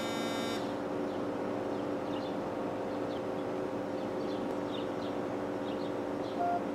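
Steady low hum and hiss of room tone, with faint short high chirps scattered through it. The DZ09 smartwatch's startup chime rings out in the first half second, and a short beep sounds near the end.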